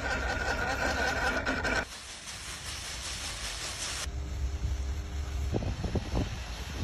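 Outdoor background noise from short clips cut together: a steady low rumble under a hiss, changing abruptly about two seconds in and again about four seconds in.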